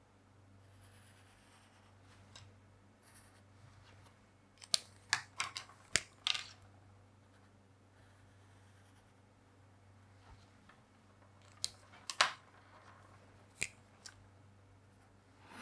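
Fineliner pens drawing on paper: faint scratchy strokes, with clusters of short clicks and taps as the pens are handled, once about a third of the way in and again near the end. A faint low hum underneath.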